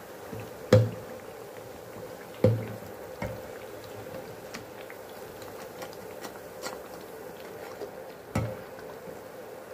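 Oil sizzling as bajra patties deep-fry in a pan, with a slotted metal skimmer knocking against the pan as the patties are lifted out: sharp knocks about a second in, about two and a half seconds in, and near the end, plus a few lighter clicks.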